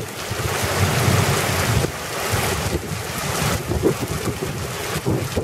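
Heavy downpour: rain pouring steadily, with gusts of wind buffeting the microphone.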